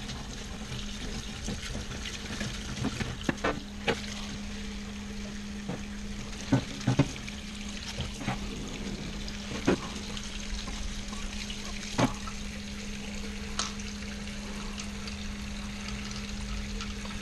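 Parts-washer solvent streaming and splashing over a CV joint as old grease is washed out, with a steady low hum underneath. A few sharp knocks are heard along the way.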